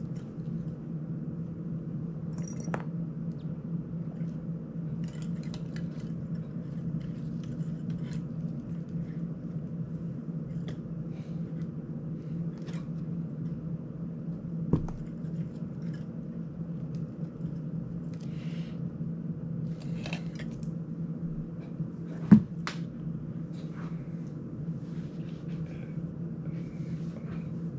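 Scattered small clicks and taps of plastic and metal parts being handled while working on an FPV drone's frame, over a steady low hum. Two sharper knocks stand out, about halfway through and later on, the second the loudest.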